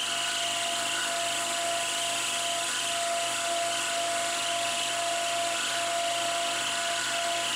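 Milling machine spindle running with an end mill cutting a metal plate, a steady whine holding one pitch throughout.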